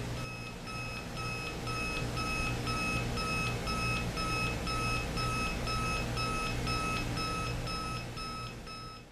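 Jensen JCR-175 clock radio sounding its alarm tone: a steady series of short, even electronic beeps at one pitch, about two a second.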